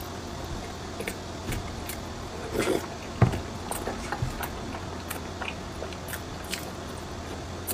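A person biting into and chewing soft, dense mung bean cakes: scattered small wet mouth clicks and smacks, with a louder bite-and-chew sound about three seconds in.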